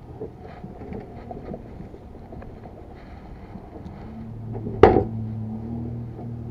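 A fabric grass catcher is handled and emptied into a plastic wheelie bin: light rustling and small knocks, then one loud thump near five seconds in. A low steady hum comes in about a second before the thump and carries on.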